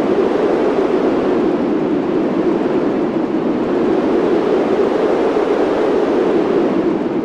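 Steady rushing air noise on an amusement ride, swelling up, holding loud and then dying away near the end, covering the ride music.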